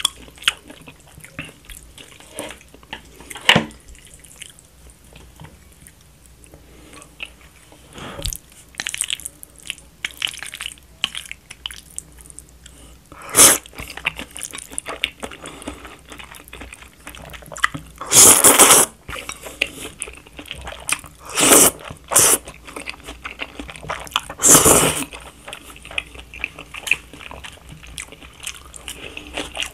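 Close-up eating sounds: wet chewing and small mouth clicks throughout, with loud slurps of thick stir-fried jjamppong noodles, five of them in the second half, the longest lasting about a second.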